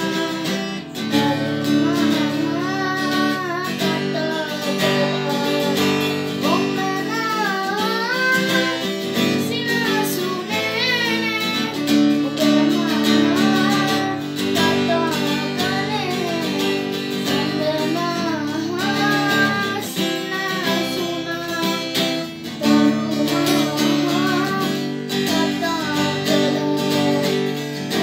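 Acoustic guitar strummed steadily as accompaniment while a boy sings a Sinhala song along with it.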